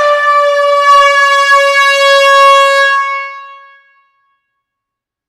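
Air horn sounding one long, steady blast that fades out about three and a half seconds in.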